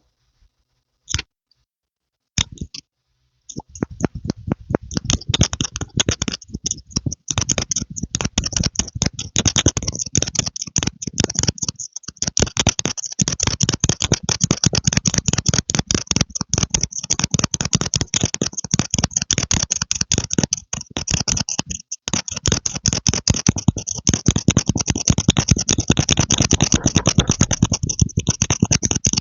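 Rapid, continuous clicking and tapping close to the microphone, preceded by a few isolated clicks in the first seconds.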